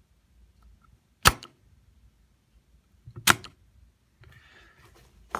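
Spring-loaded solder sucker (desoldering pump) snapping twice, about two seconds apart, as its plunger fires to pull molten solder off a circuit board's pads.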